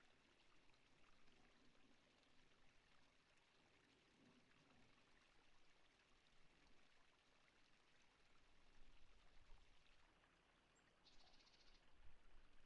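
Near silence: a faint, steady, water-like hiss, with a brief high, rapid rattling trill near the end.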